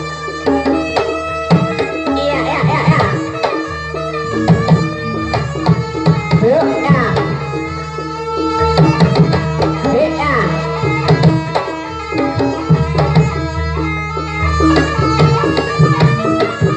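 Javanese jaranan accompaniment music: dense hand-drum (kendang) patterns over held metallic pitched tones, with a wavering melody line running over it.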